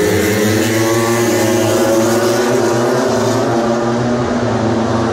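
Racing motorcycle engines running at high revs on the circuit, a steady loud drone whose pitch drifts up and down with the throttle.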